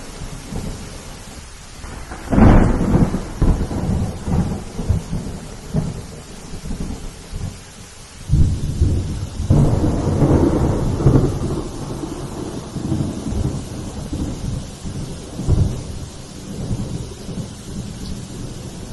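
Steady rain with rolling thunder. A loud rumble starts about two seconds in, and a second, longer rumble builds from about eight seconds in and fades over several seconds.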